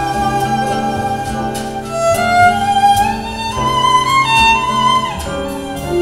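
Instrumental music played through floor-standing hi-fi speakers driven by a Denon AVR-S960H receiver, from a 24-bit FLAC file. A high melody slides between held notes over a steady bass.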